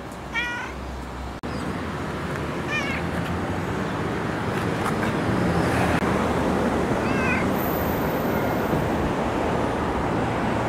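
A street cat meowing three times: one short meow right at the start, another a few seconds later and a fainter one about seven seconds in. Each call bends up and down in pitch. About a second and a half in, a steady rushing background noise comes in and lasts through the rest.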